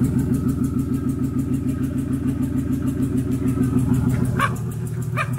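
BMW M52 straight-six in an E36 running steadily on its first start after an engine swap, with a fast, even exhaust pulse. It is really loud because it runs on an open header with no exhaust.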